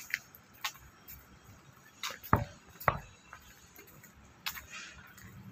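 A handful of irregular sharp knocks and clicks over a low background hiss, the two loudest close together about two and a half and three seconds in.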